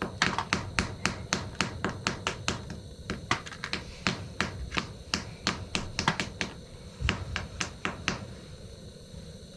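Rapid sharp clicks, about four a second and slightly uneven, stopping a little after eight seconds: a gas furnace's pilot igniter being pressed over and over to light the pilot flame.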